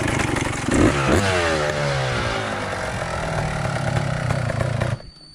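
Dirt bike engine revving up briefly about a second in, then running with its pitch falling steadily as the throttle eases off; the sound cuts off suddenly near the end.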